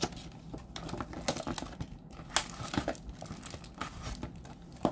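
Stiff clear plastic blister packaging crinkling and crackling as it is flexed and handled, in a string of irregular sharp crackles with a few louder snaps.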